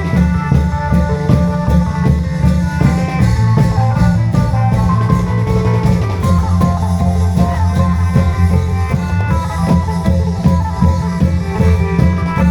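Isan klong yao long-drum band playing: drums and cymbals keep a steady beat under a busy melody line.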